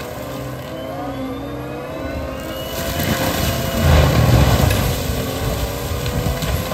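Caterpillar compact track loader's diesel engine and forestry mulcher head running under load, the whine wavering in pitch. It grows louder and heavier about four seconds in as the mulcher head cuts into brush.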